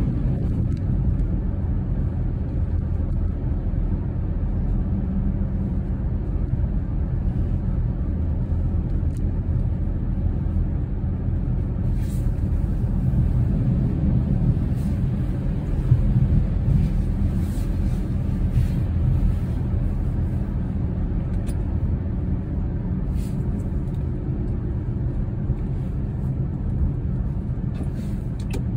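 Steady low rumble of a car driving on a wet road, tyre and engine noise heard from inside the cabin, with a few faint light clicks in the second half.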